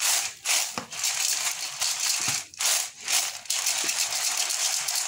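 Crisp fried chana dal rattling and sliding across a plate as it is shaken to toss it with chaat masala, in repeated swishing shakes about two a second.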